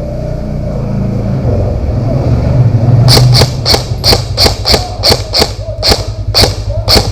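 A vehicle engine running and growing louder. From about three seconds in, a string of sharp single cracks comes roughly two to three a second, typical of airsoft guns fired shot by shot.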